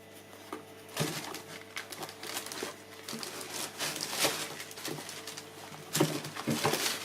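Handling noises from a new trainer and its packaging: crinkling, rustling and small scuffs and taps, starting about a second in and going on irregularly.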